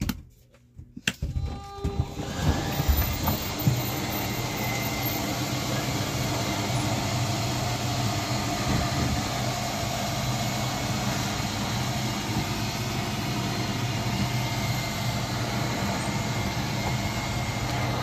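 Travel trailer slide-out's electric motors running, driving the sofa slide room outward with a steady mechanical hum and whine. It starts about two seconds in after a few light clicks.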